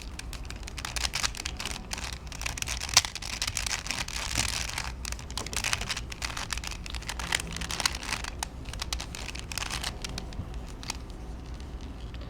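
A hand-held plastic Rubik's Cube Twist puzzle being turned quickly: runs of rapid, irregular clicks and clacks as its layers are twisted.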